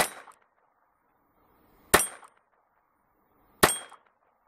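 Ruger LC9 pistol with a Twisted Industries .22 LR conversion firing three single shots, sharp cracks roughly two seconds apart.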